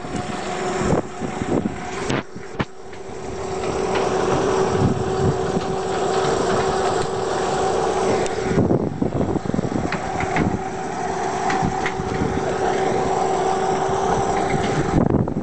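Heavy truck's diesel engine running at crawling speed, with a steady whine over the engine noise. A cluster of knocks and rattles comes past the middle.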